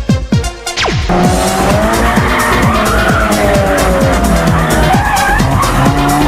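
A car engine running hard with tyres squealing, as in a drift or burnout; the engine note slowly rises and falls. It cuts in about a second in over eurodance music whose steady kick drum carries on underneath.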